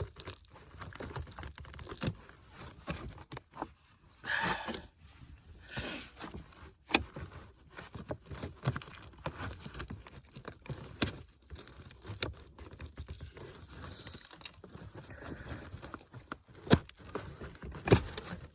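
A dirty, clogged cabin air filter being pulled out of its plastic housing: irregular scraping, crinkling and rustling of the filter against the housing, with sharp plastic clicks and knocks, the loudest two near the end.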